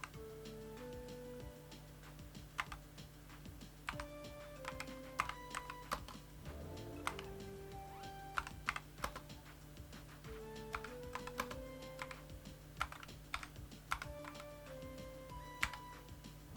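Keys being pressed on an A4Tech Bloody B950 RGB gaming keyboard with Bloody LK Libra optical switches: sharp, irregular key clicks in short clusters. Background music plays underneath.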